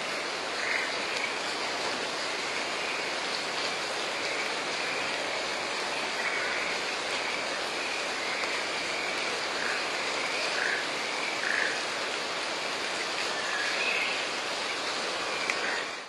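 Steady rain falling on a pond, with frogs giving short croaking calls at irregular intervals over the patter.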